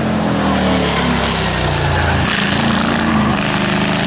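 A pre-war racing car's engine revving hard as the car approaches up the hill. The note dips and rises again a little over two seconds in.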